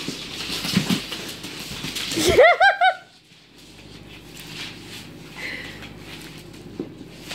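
Scratchy scuffling with small clicks, then a person's brief high-pitched laugh of a few quick rising-and-falling notes about two and a half seconds in.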